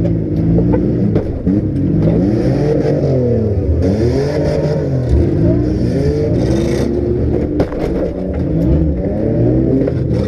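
Several compact-car engines revving up and down at once, their pitches rising and falling over one another, with a few sharp knocks of cars hitting each other.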